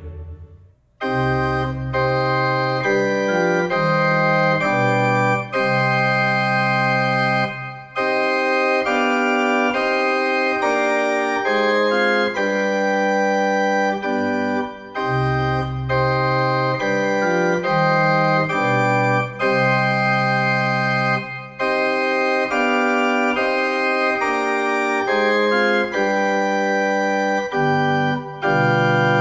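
Small wooden chamber pipe organ playing sustained chords, starting about a second in after a brief silence. The held chords change every second or two, with short breaks between phrases.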